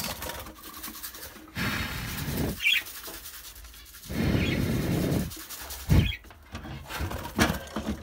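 Seed rustling and rattling in a plastic feeder cup as it is handled and filled, in two longer stretches, with a sharp click about six seconds in. Small cage birds chirp briefly now and then.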